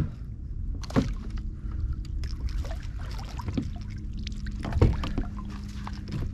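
Water lapping and sloshing around a kayak, with a steady low rumble of wind on the microphone. Two sharp knocks sound on the boat, about a second in and near five seconds in, while the landing net is being handled.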